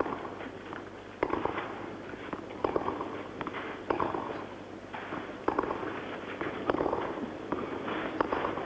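Tennis ball struck back and forth by racquets in a baseline rally, a sharp hit about every second and a half, seven in all.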